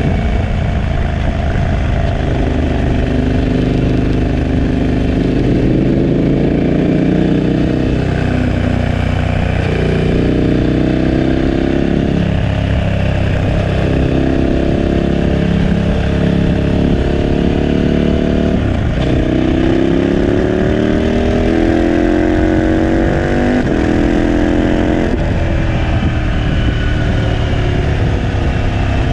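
KTM 1290 Super Adventure S's 75° V-twin running through a Remus 8 exhaust under way, its pitch climbing in long pulls and dropping back sharply at each gear change, several times.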